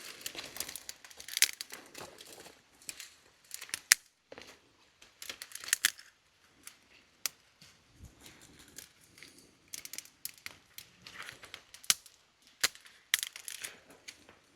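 Wood campfire crackling, with irregular sharp pops and snaps of wood in the flames.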